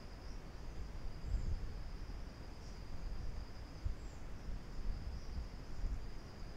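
Background noise with no speech: a steady, high-pitched whine or trill over a low, uneven rumble, with a couple of soft low thumps.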